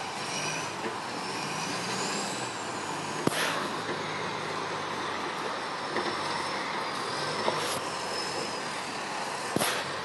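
Tow-truck winch and engine running steadily while a sunken car is pulled from the river on a cable. There is a faint wavering high whine and a few sharp knocks.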